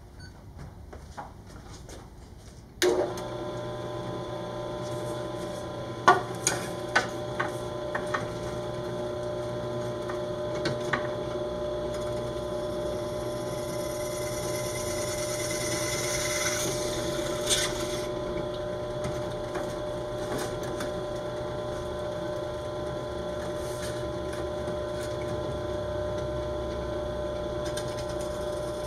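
Benchtop drill press motor switched on about three seconds in and running steadily. A few sharp knocks follow, and then, for about six seconds, the bit drills into the fiberglass rocket body tube with a hiss that grows louder and stops suddenly.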